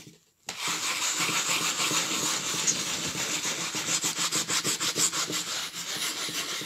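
Paper towel rubbed rapidly back and forth over dried salt crystals crusted on watercolour paper, a steady scratchy rasp that sounds just like sandpaper; it starts about half a second in. The salt is being scraped off the finished painting.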